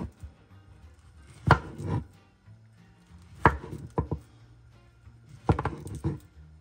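Kitchen knife slicing ripe plantain into thin rounds on a wooden cutting board: three cuts about two seconds apart, each ending in a sharp knock of the blade on the board.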